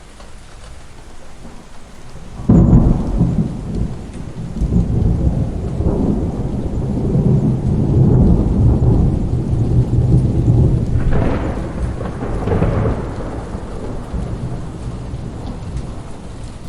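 Steady rain with a sudden thunderclap about two and a half seconds in, then a long rolling rumble of thunder with two sharper cracks partway through, fading toward the end.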